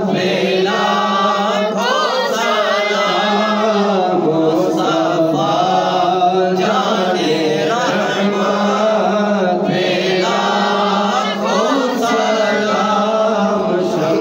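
Voices chanting a naat, an Islamic devotional hymn, in long ornamented sung lines over a steady low held tone.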